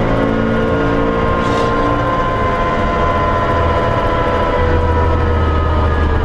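Chevrolet S-10 drag truck's engine heard from inside the cab, running at low revs with its pitch slowly falling as the truck slows down.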